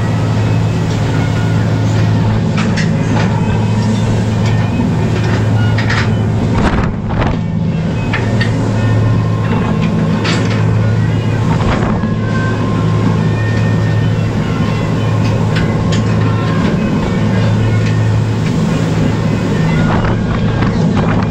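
Steady low drone of a crab boat's engine and machinery. Scattered metal knocks and clanks of steel crab pots and gear on deck come through it, several times.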